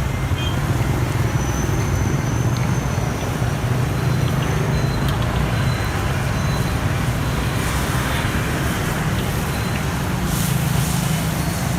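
Steady road traffic noise: a continuous low rumble of passing vehicles, with a few brief clatters near the end.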